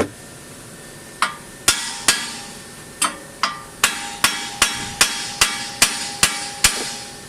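Hammer striking the steel steering knuckle to knock a tie rod end's tapered joint loose, the usual way when no puller tool is used. There are about a dozen blows, coming faster after a pause, and the later ones ring with a steady metallic tone.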